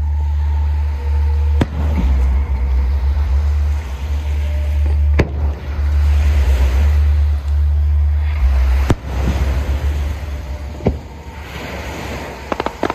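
Aerial fireworks display: four sharp shell bursts a few seconds apart, with a rapid run of crackling cracks near the end, over a heavy continuous low rumble.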